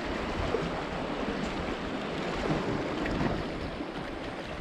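Sea water washing and lapping against concrete tetrapod breakwater blocks, a steady rushing noise, with wind buffeting the microphone as a low rumble.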